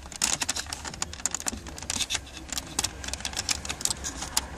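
Rapid, irregular small plastic clicks and rattles as fingers work the heater control cables' plastic retaining clips off the heater box of a Mercedes-Benz A-Class W169.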